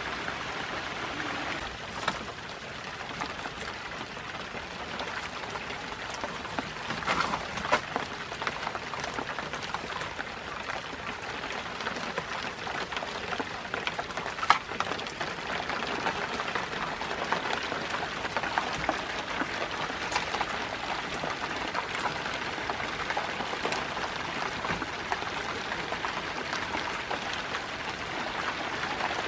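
Steady rain falling on and around a shelter, with scattered sharp taps of drops, the loudest about halfway.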